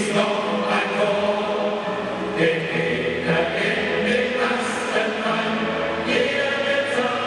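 Football stadium crowd of thousands of supporters singing a chant in unison, steady and unbroken, the melody changing every second or so.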